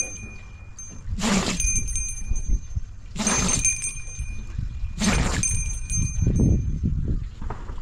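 Three hard strikes on metal, about two seconds apart, each leaving a high metallic ring, over a low rumbling noise.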